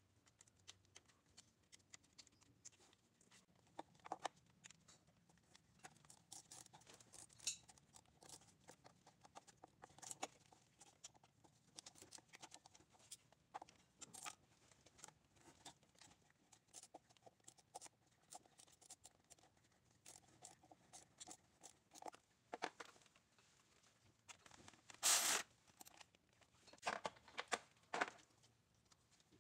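Faint scattered clicks and rustles of gloved hands working at the alternator's power cable terminal and wiring, with a brief louder rustle about 25 seconds in.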